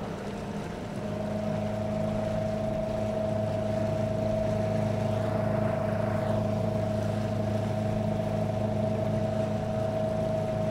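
Newport NT300 electric outboard motor running at full throttle: a steady high-pitched whine over a low hum, building up over the first second or two and then holding steady.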